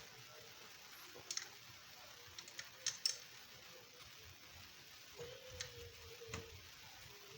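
Scattered light clicks and taps, about eight of them and irregularly spaced, loudest around three seconds in, with a faint steady hum in the second half.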